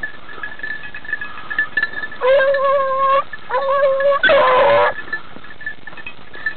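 Beagles baying on a hare's scent: three long, steady-pitched bays about two, three and a half and four seconds in, the last one loudest. A faint, steady high ringing tone runs underneath.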